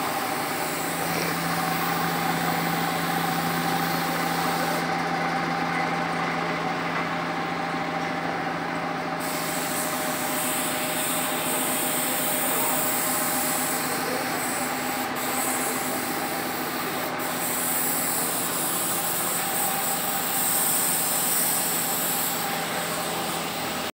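Paint spray gun hissing as it sprays steel parts, pausing for a few seconds about five seconds in, then spraying steadily again, over a steady machine hum.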